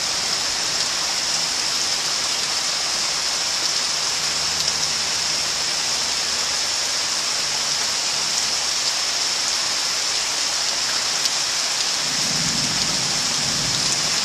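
Heavy thunderstorm rain pouring down in a steady hiss, with a low rumble near the end.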